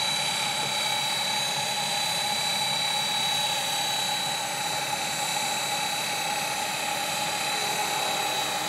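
Align T-Rex 600 radio-controlled helicopter hovering low, its rotor and drivetrain giving a steady, even whine.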